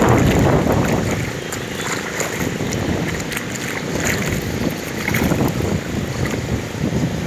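Wind buffeting the microphone over choppy lake water, with water sloshing and splashing around a man wading and gathering a cast net. The sound is loudest in the first second.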